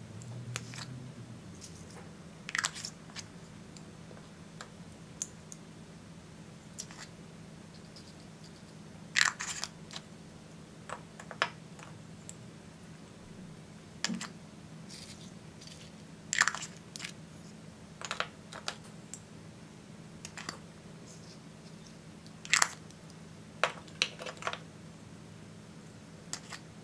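Small plastic glitter jars being handled and their screw lids twisted open: a dozen or so sharp plastic clicks and crackles at irregular intervals, some in close pairs, over a low steady hum.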